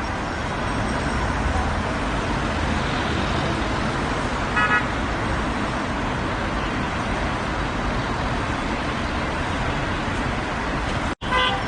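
Steady noise of busy road traffic with a single short car horn toot about halfway through. The sound drops out for an instant near the end.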